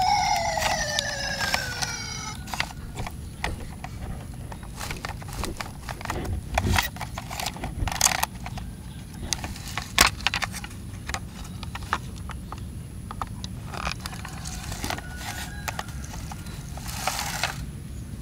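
Toy fire truck's siren sliding down in pitch and dying away in the first two seconds, then scattered clicks and knocks of hard plastic as the toy's ladder is turned and handled.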